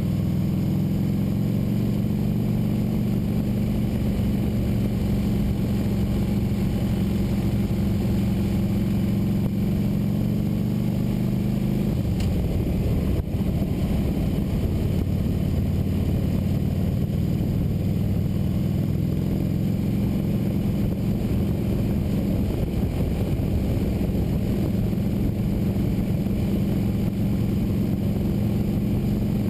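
Motorcycle engine running steadily under way, with wind and road noise. The engine note changes about twelve seconds in, then settles again.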